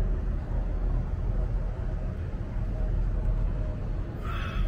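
Steady low outdoor rumble, with a short high chirp near the end.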